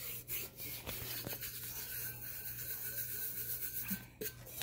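A hand rubbing and pressing fine holographic glitter flat onto a glue-coated tumbler: a continuous soft, scratchy rubbing with a few faint ticks, easing briefly near the end.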